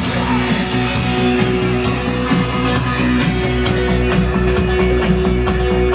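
Music from an FM station playing through the speakers of an Airline tube console stereo: a song with guitar.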